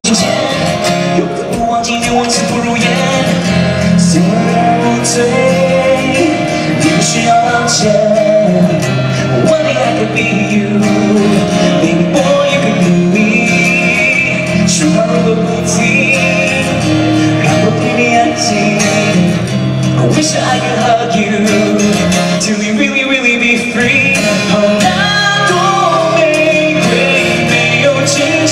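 A man singing a song live into a handheld microphone, with instrumental backing music.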